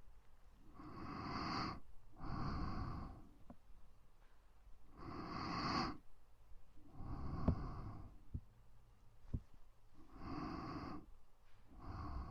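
Close-miked ASMR breathing: three slow breath cycles, each a soft breath in and a breath out about a second long, with a few faint clicks between them.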